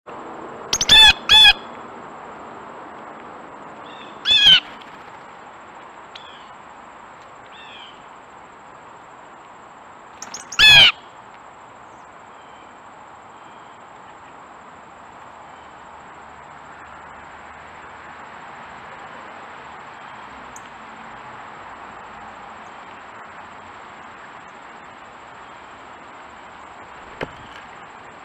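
Blue jays calling: loud, harsh calls, two in quick succession about a second in, another at about four and a half seconds and one more near eleven seconds, over a steady background hiss.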